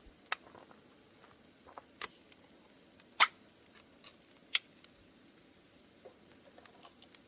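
Scattered sharp clicks and light taps, the four loudest about one to one and a half seconds apart, with fainter ticks between them.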